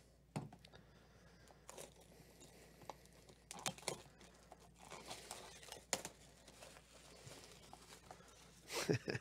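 Clear plastic shrink-wrap being torn and crumpled off a sealed hobby box of baseball cards: scattered crinkling rips, with the loudest crackle near the end.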